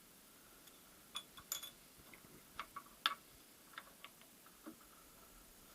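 Small steel gearbox parts (synchronizer ring and synchro hub on the secondary shaft) clicking and clinking as they are handled and seated, about a dozen irregular sharp clicks, the loudest about three seconds in.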